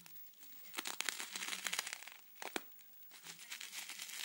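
Plastic bubble wrap crinkling and crackling as hands pull at the parcel to open it, in two spells of dense crackles with a single sharp snap between them.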